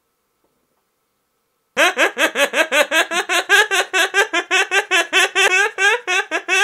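Near silence, then about two seconds in a quick, high-pitched run of giggling laughter starts, about five or six laughs a second.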